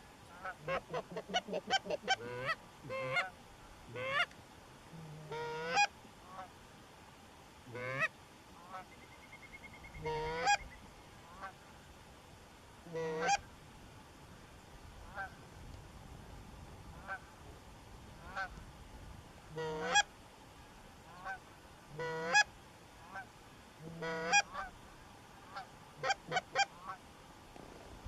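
Canada goose honks and clucks: a quick run of calls in the first three seconds, then single honks and short bursts every few seconds.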